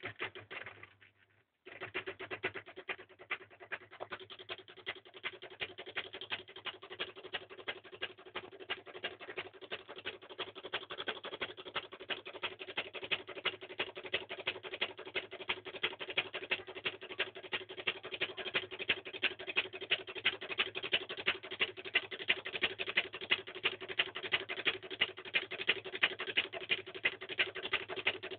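Small three-coil reed-switch pulse motor running: rapid, even clicking of its coil pulses over a steady hum, with louder ticks about twice a second. It starts about two seconds in and grows slowly louder.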